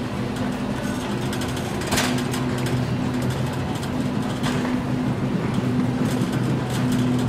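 Shopping cart rolling over a store floor, its wheels and wire basket rattling in a steady rumble, with a sharper knock about two seconds in.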